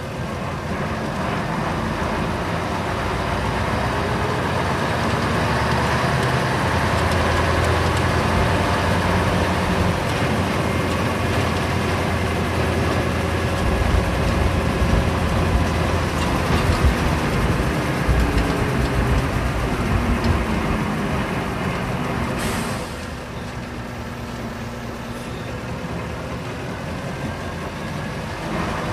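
Isuzu Cubic city bus (KC-LV380N) V8 engine running under way, heard from inside the cabin: the engine sound builds over the first few seconds and holds strong for about twenty seconds. About 23 seconds in there is a brief hiss and the engine sound drops and stays quieter.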